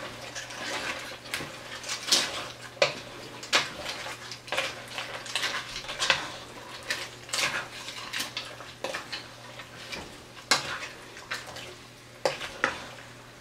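Wooden spoon stirring fried tortilla pieces and shredded chicken in red salsa in a pot, with irregular scrapes and knocks of the spoon against the pan.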